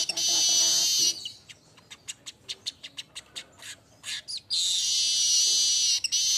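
Weaver bird (manyar) singing: a harsh, high buzzing sizzle, then a quick run of dry ticks at about six a second, then the buzzing sizzle again from about four and a half seconds in.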